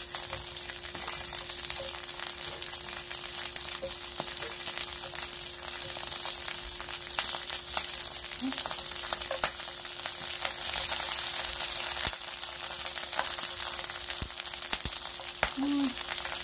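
Bite-size pieces of atsuage (thick deep-fried tofu) sizzling in hot scallion oil in a non-stick frying pan, with fine crackling as more pieces are laid in.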